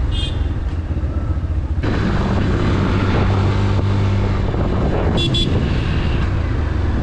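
Motorcycle engine running while riding, with wind rushing over the microphone. Two short high-pitched beeps sound, one right at the start and one just past five seconds in.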